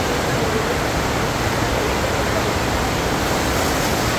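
Steady rush of water from a FlowRider sheet-wave machine, a thin sheet of pumped water pouring up the padded ride surface.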